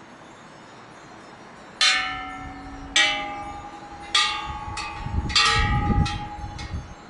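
Thai temple bells struck one after another: about six strikes starting about two seconds in, roughly a second apart. Each strike rings on with its own set of pitches.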